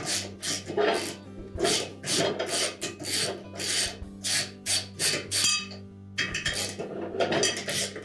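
Socket ratchet on an extension being worked back and forth to loosen the bolts securing a washer's damper base, giving a ratcheting rasp about three times a second, with a brief break about six seconds in.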